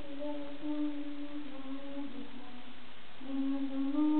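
A single voice chanting Quran recitation in long, drawn-out melodic notes. It pauses for a breath about three seconds in and resumes a little louder.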